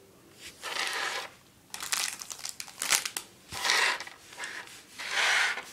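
Small plastic zip bags of craft supplies crinkling as they are handled and pushed about on a table, in several bursts with a few sharp clicks.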